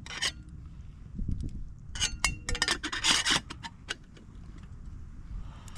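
Short scraping and rubbing strokes of something being handled, a few near the start and a dense cluster about two to three and a half seconds in, over a low rumble of wind on the microphone.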